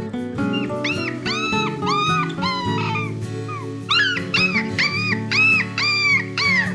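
A dog yelping in two runs of short, high calls that rise and fall, about two a second, over background music.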